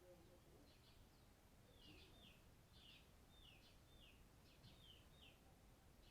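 Faint, repeated chirps of a small bird: short falling notes, about two a second and often in pairs, over a low background hum.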